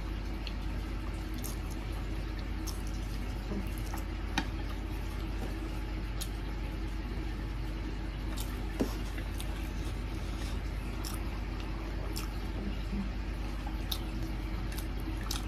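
A person eating spicy noodles with chopsticks: soft wet slurping and chewing with scattered small clicks, over a steady low hum.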